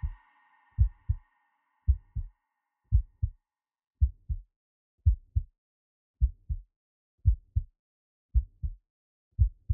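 Slow heartbeat, each beat a deep double thump (lub-dub), a little under one beat per second. A held musical tone fades out during the first two seconds.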